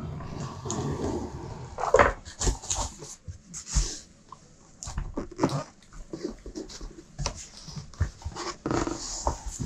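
Large cardboard shipping carton being handled and tipped onto its side while the boxed game inside is slid out: cardboard scraping and rubbing, with a series of knocks and bumps.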